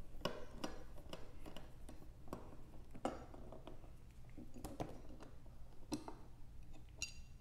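Scattered metallic clicks and clinks, about half a dozen, some ringing briefly, as a hex-bit speed handle unscrews a motorcycle handrail's bolts and the metal rail is lifted off.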